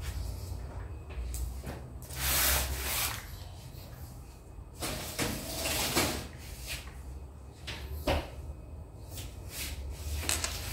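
Oven door opened and shut as a metal baking tin is slid inside, with clunks and knocks of the door and tin.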